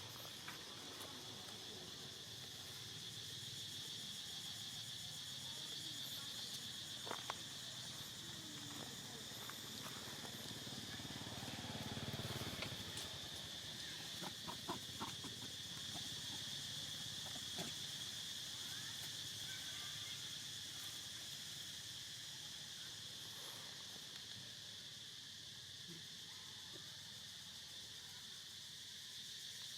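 Steady, high-pitched drone of insects such as crickets, with a few faint clicks and rustles around the middle.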